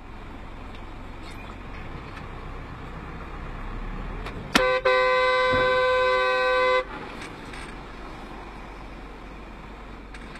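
Car horn sounding: a short toot about four and a half seconds in, then a steady blast of about two seconds, the loudest thing here. Underneath is the low, steady rumble of a car on the road.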